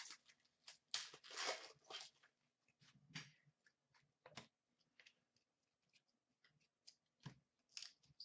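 Faint rustling and clicking of hockey trading cards being flipped through and set down by hand, in scattered short bursts.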